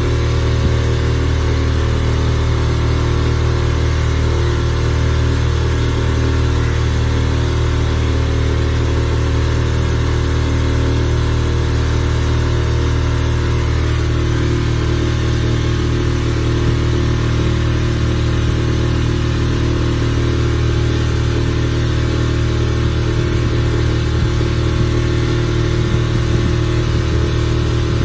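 Small motorboat's engine running steadily as the boat cruises along a backwater channel, a constant low drone whose note shifts slightly about halfway through.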